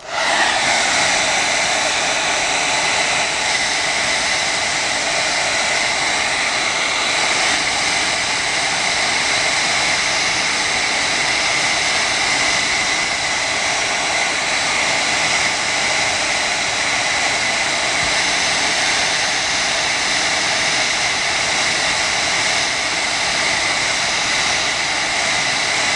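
Hand-held hair dryer switched on and blowing steadily, a rush of air with a steady whine, heating a phone screen to soften the glue under the glass.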